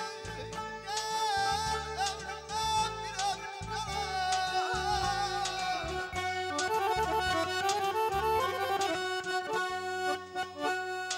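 Live wedding-band music: a wavering melody line over a held drone note and a repeating bass pattern.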